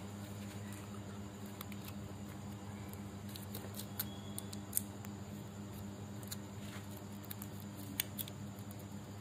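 Foil-and-plastic medicine packet being handled and torn open by hand, giving scattered sharp crinkles and clicks, the loudest about four seconds in, just before five seconds, and at eight seconds, over a steady low hum.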